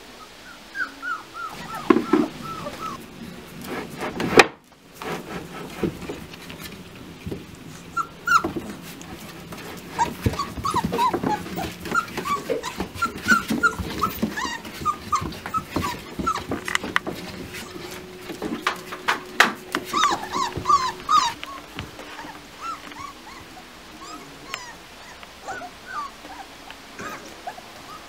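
Beauceron puppies whimpering and yipping in many short, high squeaks, with frequent sharp clicks and scratches among them.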